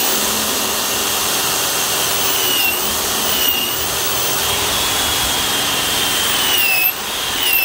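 Black & Decker DR260 corded 3/8-inch drill running under load, boring a 3/4-inch installer's bit into a block of wood. Its motor whine wavers in pitch as the bit bites and frees up, and dips briefly near the end.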